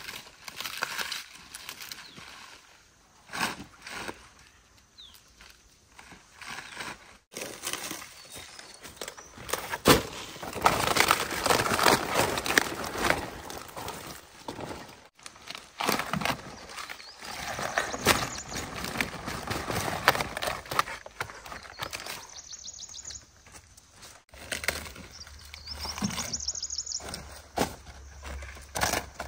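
Cabbage leaves rustling and snapping as heads are handled and harvested by hand, in repeated bursts with sharp clicks. Birds chirp briefly twice near the end.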